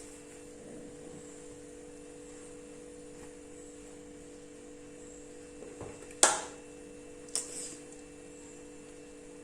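Steady low hum, broken about six seconds in by a sharp ringing metallic clank and a lighter one a second later: a serving spoon knocking against the biryani pot as rice is spooned in.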